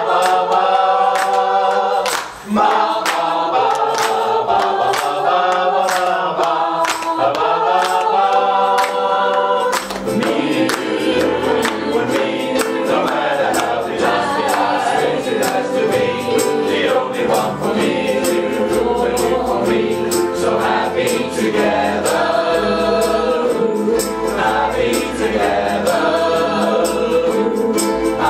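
Ukulele ensemble strumming in a steady rhythm while the group sings together. About ten seconds in, deeper notes come in and the sound fills out.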